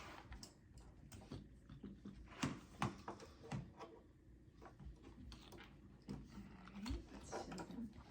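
Soft, scattered clicks and taps at irregular intervals from a plastic kids' tablet being handled and turned over.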